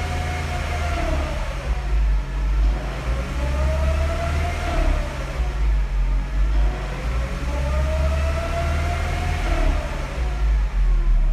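Mercedes-Benz SLK 200 Kompressor's M111 supercharged four-cylinder engine running over a steady low rumble, with a whine that rises and falls in pitch in slow swells about every four and a half seconds. This whine is the strange noise the owner is asking about.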